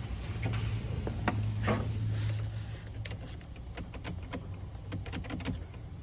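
Light clicks and handling noises as a Maserati Ghibli's driver's door is opened and someone gets in and tries the controls, the car dead with no interior power. There is a low steady hum in the first couple of seconds, then a quick run of small clicks.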